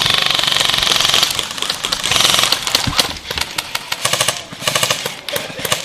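Airsoft rifles firing on full auto: a fast, even rattle of shots that starts abruptly, then breaks into shorter, uneven bursts.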